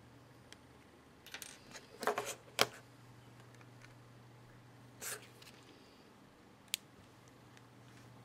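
Handling noise from a small mp3 player being turned over on a wooden desk: a cluster of rustles and knocks, the sharpest about two and a half seconds in, a short rustle about five seconds in, and a single sharp click near seven seconds.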